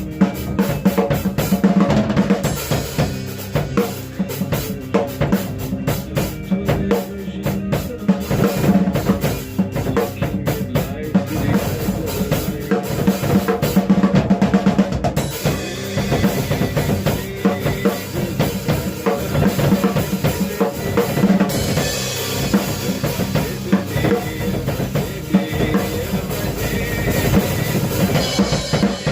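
A 1973 Slingerland drum kit with new heads being played: a continuous groove of bass drum, snare and tom strokes, with cymbals ringing more heavily in the second half.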